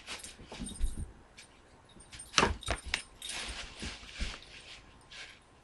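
Two kittens play-fighting on carpet and a plastic bag: scuffling and bumping, with a quick run of sharp knocks about two and a half seconds in, then bursts of plastic crinkling.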